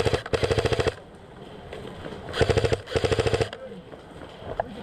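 Airsoft rifle firing on full auto in rapid rattling bursts: one burst of about a second, then two shorter bursts close together a couple of seconds later.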